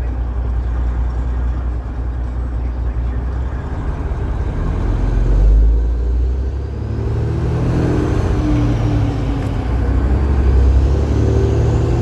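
Detroit Diesel Series 60 12.7-litre inline-six diesel pulling a heavy load of about 135,000 lb, running with a deep steady drone. About six seconds in the note briefly drops away, then the engine pulls again, its pitch climbing.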